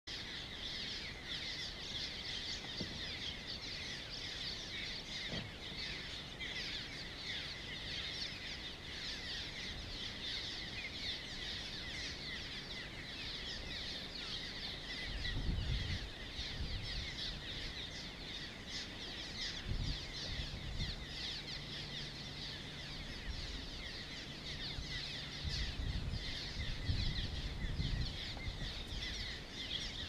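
A large flock of small birds chirping and twittering, many calls overlapping in a dense, unbroken chorus. Low thumps and rumbles come in about halfway through and again through the later part.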